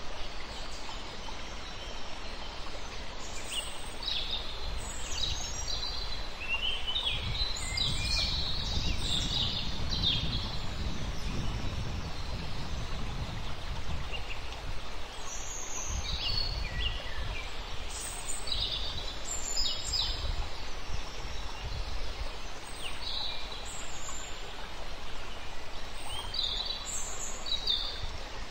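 Small birds chirping and singing in short, irregular phrases over a steady outdoor background hiss.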